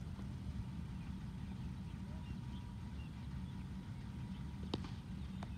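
Cricket bat striking a thrown cricket ball with a single sharp crack near the end, followed shortly by a fainter click, over a steady low engine-like rumble.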